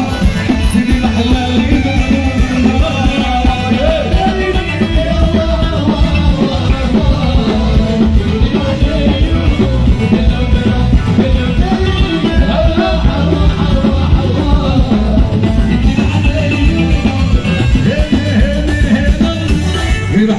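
Live Moroccan chaabi band music over a stage PA: violin and keyboards playing the melody over a steady driving beat.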